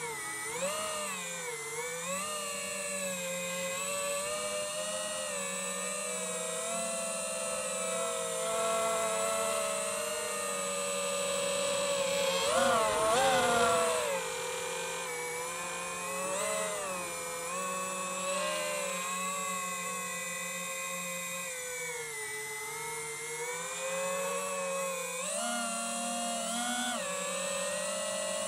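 FPV quadcopter's brushless motors and propellers whining in flight, the pitch rising and falling with the throttle. A hard burst of throttle comes about halfway through, the loudest moment, and another rise near the end.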